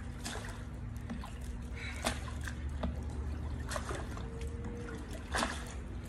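Pool water splashing and dripping as a person climbs out of a swimming pool, with irregular small splashes, the two strongest about two and five seconds in, over a steady low hum.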